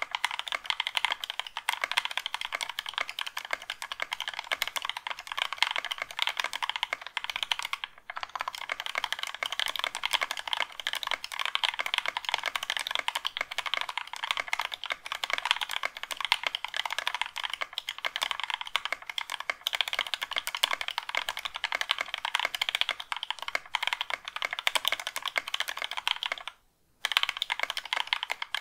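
Fast, continuous typing on a keyboard fitted with Thic Thock Marshmallow progressive linear switches (nylon housing, POM stem), lubed with Krytox 205g0 on the housings and stem: a dense, steady patter of keystrokes. The typing breaks off briefly a little under two seconds before the end, then resumes.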